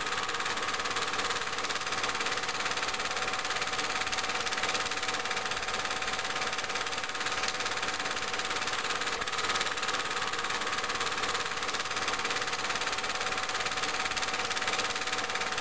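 A steady mechanical whir with even hiss and a constant faint hum, unchanging throughout.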